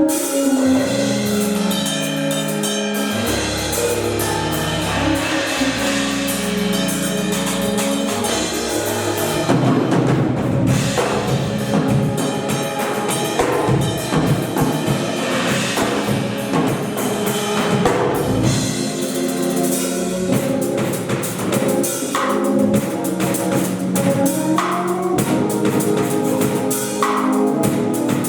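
Instrumental music with a drum kit and bass; the drums come in fully about nine seconds in.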